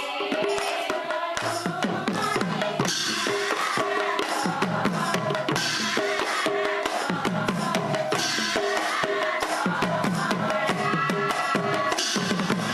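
Devotional naam kirtan: a group of voices singing hymns over fast, steady clashing of hand cymbals and regular drum strokes.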